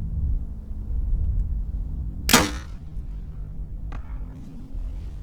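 A compound bow shot: one sharp snap of the string about two seconds in, then a faint knock about a second and a half later as the arrow strikes the distant target.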